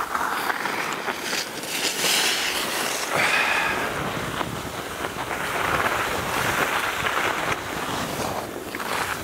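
Skis hissing and scraping over packed snow on a downhill run, swelling and fading several times, with wind buffeting the microphone.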